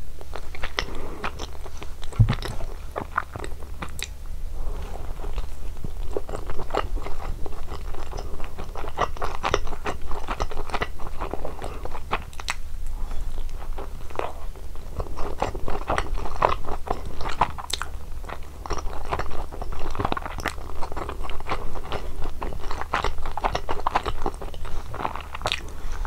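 Close-miked biting and chewing of a cheese pizza slice, the crust crunching in a steady run of crackles, over a steady low hum.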